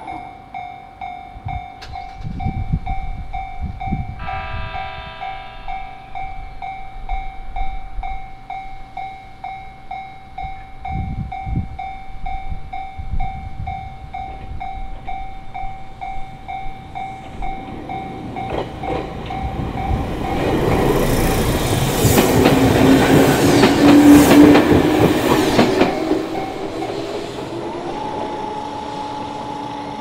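Railway crossing's electronic warning bell ringing at about two strikes a second, with an electric train giving a horn blast of about two seconds around four seconds in. The bell stops at about 19 seconds, and the train then passes loudly over the crossing, its wheels clacking over the rails, loudest about 24 seconds in, before it fades.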